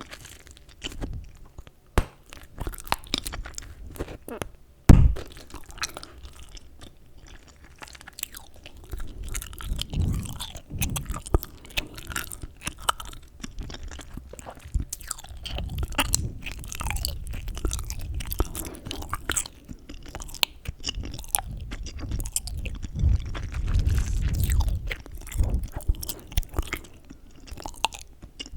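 Close-up chewing of gum: irregular wet clicks, smacks and snaps of the mouth, with a single loud thump about five seconds in.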